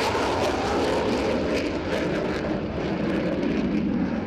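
An F/A-18C Hornet's twin General Electric F404 turbofan engines at takeoff power during a low pass and steep banking climb: a loud, steady rush of jet noise whose hiss thins toward the end as the jet pulls away.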